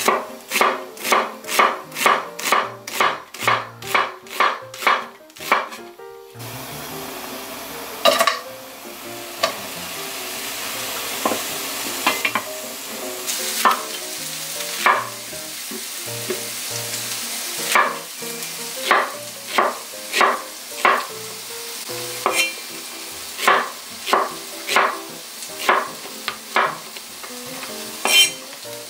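Chef's knife cutting vegetables on a wooden cutting board: a quick, even run of slicing strokes through an onion for the first several seconds, then after a short break a hissy stretch with scattered cuts, then slower, even chops through a Korean zucchini near the end.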